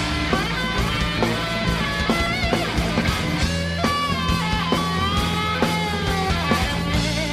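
Instrumental break of a rock song, with no singing. A lead guitar plays bending, wavering notes over a steady bass line and a regular drum beat.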